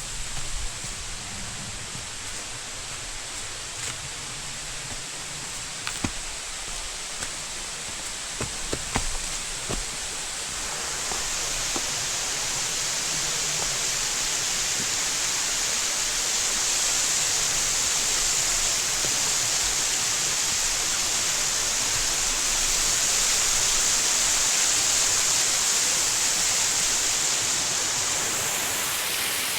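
Waterfall rushing steadily, getting louder about a third of the way through. A few light knocks in the first several seconds.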